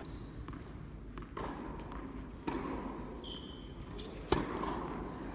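A tennis ball bounced on a hard court a couple of times, then struck hard by a racket on a serve about four seconds in, the loudest sound.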